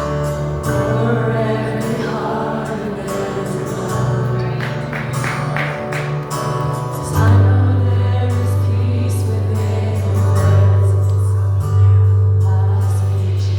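Church worship band playing with singing voices. A deep held bass note comes in much louder about seven seconds in.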